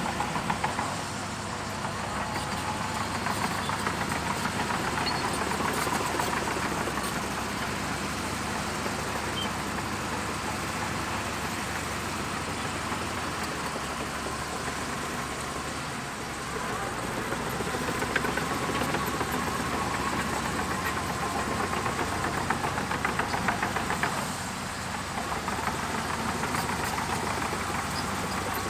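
Shantui DH17C2 bulldozer's diesel engine running with a fine rapid clatter, its level swelling and easing as it works, with a drop in level near the end.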